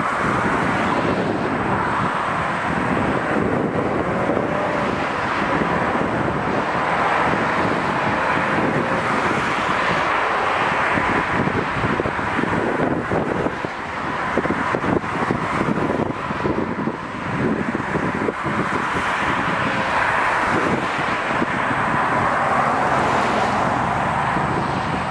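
Steady outdoor background noise of distant road traffic, with some wind on the microphone.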